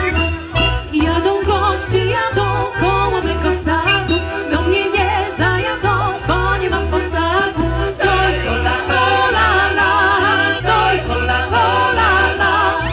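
Live Polish folk song: women's voices singing together over a band, with a steady pulsing bass beat underneath.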